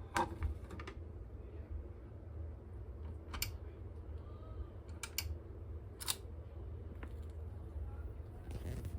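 Scattered sharp clicks and light knocks of a vinyl record being handled and set up on a record player, over a steady low hum.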